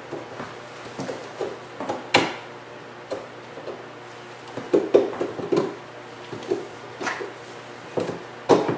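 Clicks and knocks of a 3D printer's aluminium frame being handled as its top section is fitted onto the uprights, with one sharp knock about two seconds in and a cluster of them about halfway through.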